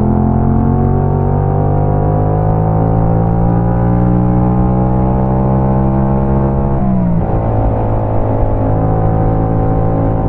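Motorcycle engine pulling steadily higher in revs as the bike accelerates. About seven seconds in the pitch drops sharply with a gear change, and the engine then runs on at a steadier note.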